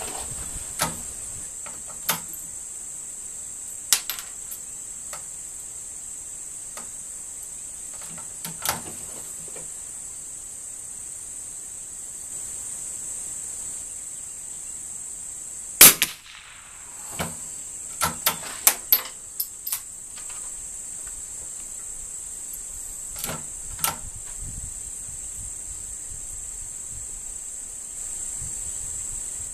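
A single sharp .22 rimfire rifle shot about halfway through, followed within a couple of seconds by a quick run of metallic clicks from the bolt being worked, with a few softer handling clicks before and after. A steady high-pitched insect chirring runs underneath.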